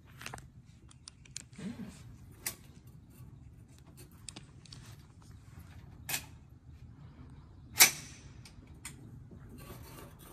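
Scattered sharp clicks and knocks of a rifle being handled and worked, with one loud knock about eight seconds in.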